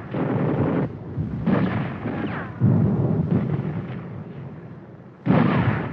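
Battle explosions: four blasts in a row, each dying away, with the last two the loudest.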